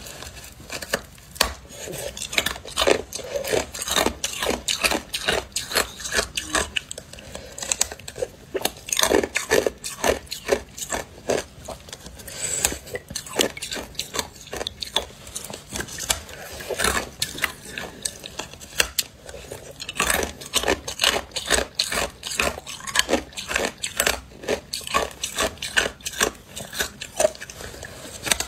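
Teeth biting and crunching a block of hard clear ice: a rapid run of sharp cracks and crunches, several a second, with a couple of brief lulls.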